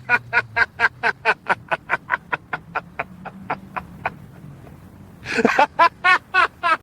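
Laughter: a long run of quick, staccato 'ha' bursts, about five a second, for about four seconds, then a second burst of laughter near the end.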